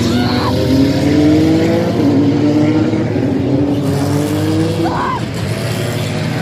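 Race car engine accelerating, its pitch climbing steadily, dropping at a gear change about two seconds in and then climbing again.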